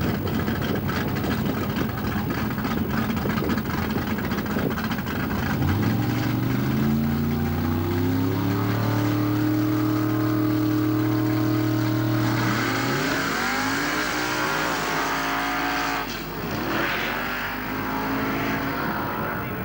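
Drag car's engine rumbling on the start line, then revved up and held at a steady high pitch for several seconds. It launches with a jump in loudness, and the revs climb as the car pulls away, dipping once and climbing again before fading.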